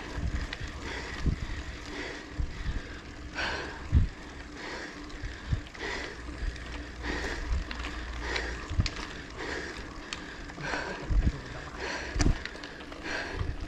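A cyclist breathing hard, with a breath about every second and a half, while pedalling a bicycle up a climb. Low thumps and rumble from the ride run underneath.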